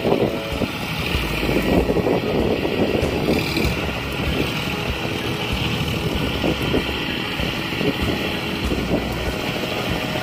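John Deere 5050D four-wheel-drive tractor's three-cylinder diesel engine running steadily as it works through a flooded paddy field, with wind noise on the microphone.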